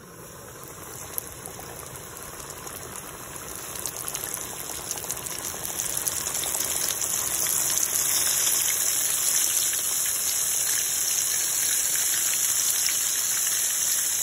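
Breaded chicken strips deep-frying in hot oil, sizzling. The sizzle builds over the first eight seconds or so as the pieces go in, then holds steady and loud.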